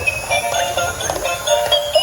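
Music: a bright melody of short notes that change every fraction of a second.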